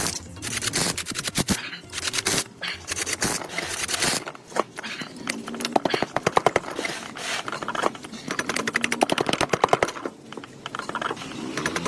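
Workshop tool work: bursts of rapid tapping and rattling, many strikes a second, with short breaks between bursts.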